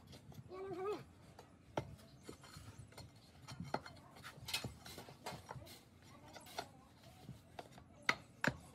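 Irregular light knocks and clicks of workshop work, with some scraping between them.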